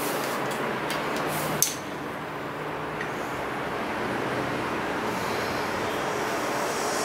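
Steady rushing background noise, with one sharp click about one and a half seconds in.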